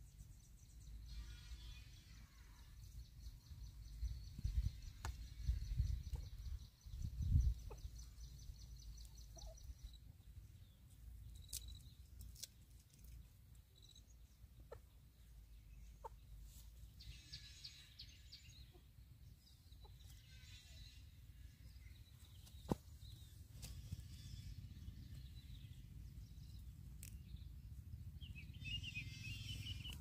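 Faint outdoor ambience with bird calls in a few short, separate bouts, over a low rumble that swells between about four and eight seconds in. A thin, high, steady tone runs through the first third.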